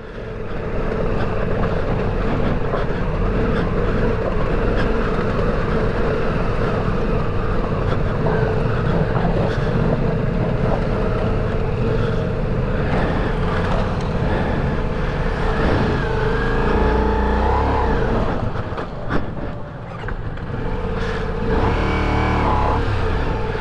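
Ducati Multistrada V4 Rally's V4 engine running and revving as the bike slows to a stop on slick, wet rocks and struggles to get going again. The level drops briefly near the end, then the revs rise again.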